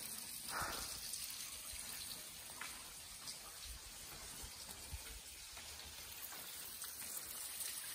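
A small waterfall running down a stone wall, trickling and splashing steadily, with faint drips.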